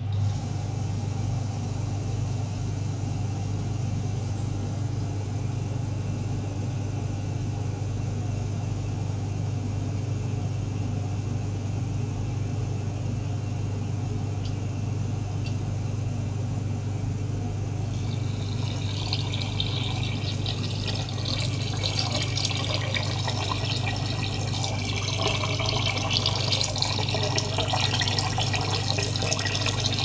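A small water-circulation pump runs with a steady low hum. About 18 seconds in, water starts splashing and bubbling in the tank as the pump drives air bubbles in with the water, and this gets louder toward the end.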